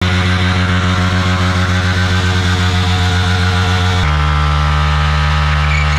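Yamaha MT-15's 155 cc single-cylinder four-stroke engine held at high revs during a burnout, the rear tyre spinning in place. The engine note pulses rapidly at first, then changes abruptly about four seconds in to a steadier high note.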